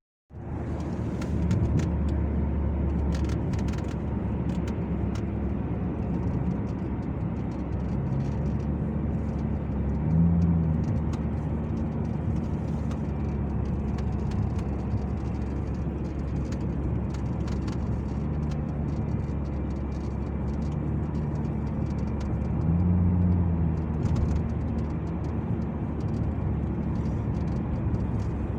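Cabin noise of a first-generation Volvo S80 on the move: a steady engine and road drone that swells twice, with scattered faint chirping ticks from the dashboard under the windshield, which the owner takes for loose plastic or a poorly bonded windshield.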